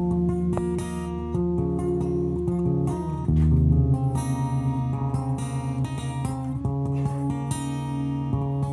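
Background music led by guitar, with plucked and strummed notes over a steady bass line.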